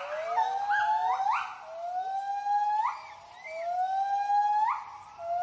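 A gibbon family giving its territorial hooting call: a run of whooping notes, each sliding slowly upward and then sweeping sharply higher, about one a second, with voices overlapping near the start. The call announces and defends the group's territory.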